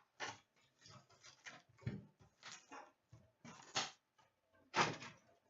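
Hockey card pack wrappers and a hobby box being handled and torn open: irregular crinkling and rustling, with a louder rip near the end.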